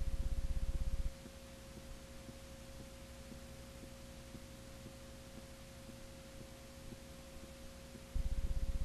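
Electrical hum and buzz on the audio track of a blank, black stretch of old videotape: a steady mid-pitched tone throughout, with a louder low buzz that drops away about a second in and returns near the end.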